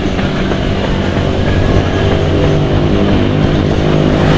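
A motor vehicle's engine running at a steady pitch: a low drone that grows a little louder.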